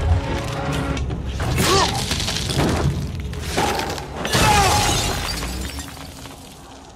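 Film battle sound mix: crashing and impact sounds, with shrill cries rising and falling about two seconds in and again about four and a half seconds in, over a music score. It fades down toward the end.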